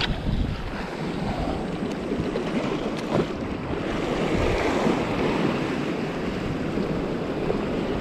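Sea waves washing and foaming against a rock ledge, with wind buffeting the microphone. There is a single sharp click about three seconds in.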